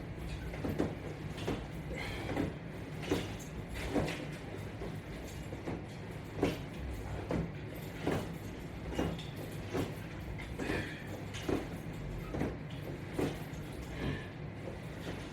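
A person doing a set of sit-ups with strap attachments: a short knock with each repetition, evenly paced about every 0.8 seconds, over a steady low hum.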